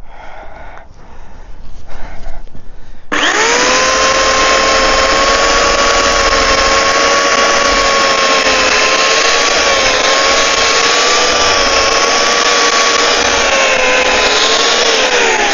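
A chainsaw starting up about three seconds in and running at a steady high speed with its newly fitted chain, as a test that the chain stays on. It slows down near the end. Before it starts there are a few faint knocks of handling.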